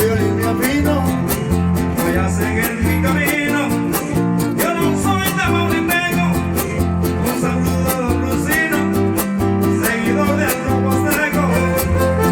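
Huasteco trio playing a huapango instrumental passage: a violin melody over steady rhythmic strumming of guitars with deep bass notes.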